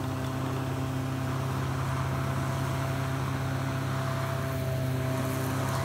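Electric lawn mower running steadily while mowing grass: a strong, even hum with a steady whine above it.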